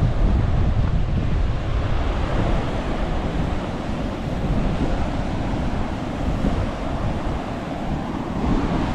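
Steady rush of whitewater, with wind buffeting the microphone.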